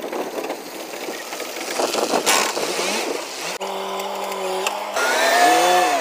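Ashok Leyland tipper lorry's diesel engine running, at first a rough noisy rumble. About three and a half seconds in, a steady engine tone comes through. Near the end it rises and wavers in pitch as the engine is revved.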